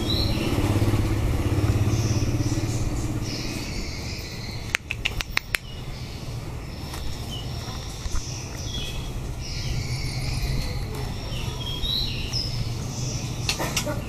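A motor engine runs steadily, louder in the first few seconds, while small birds give short, high chirps on and off. A quick run of sharp clicks comes about five seconds in, and a few more near the end.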